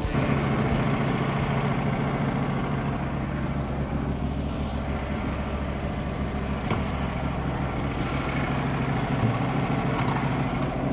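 Wood-Mizer LT15 sawmill running steadily, its engine holding an even pitch.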